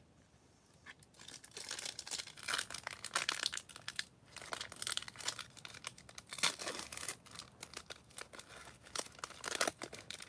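Foil wrapper of a trading card pack being torn open and crinkled by hand, starting about a second in as a run of irregular crackling bursts.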